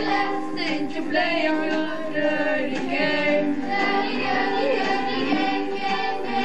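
A group of children singing a rock-and-roll song together, with keyboard accompaniment.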